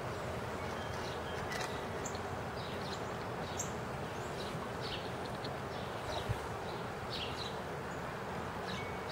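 Small birds chirping: scattered short, high chirps over a steady outdoor hiss. A single soft thump comes about six seconds in.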